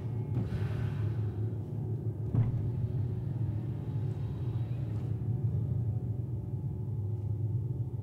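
A low, sustained rumbling drone from a contemporary chamber ensemble with electronics, with one sharp accent about two and a half seconds in.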